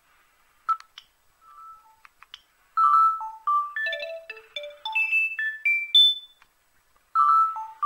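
Gigaset C620A cordless phone handset playing its ringtone at the set ringer volume. First come a few faint short beeps and clicks, then a quick melody of short pitched notes that stops about six seconds in and starts again near the end.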